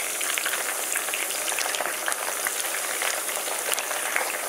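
Mushrooms deep-frying in hot spiced oil, sizzling steadily with dense fine crackling.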